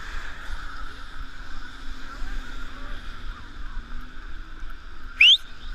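Steady rushing wind noise on the microphone of a camera carried by a runner on wet pavement. About five seconds in comes one short, loud, quickly rising whistle-like squeak.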